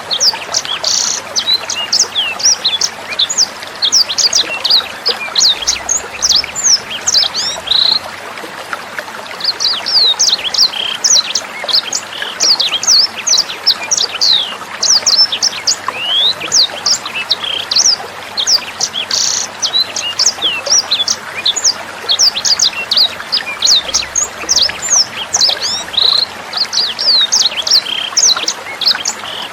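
A sanger songbird singing rapid, sharp, high chirps in quick strings, with a brief pause about eight seconds in, over a steady trickle of water.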